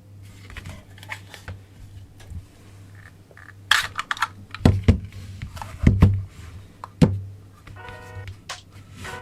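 Hands handling a Hudson model gun of the Nambu Type 14 pistol as it is taken apart: irregular clicks, clacks and knocks of the parts. The loudest knocks come about four to seven seconds in, over a steady low hum, with a pitched, musical sound near the end.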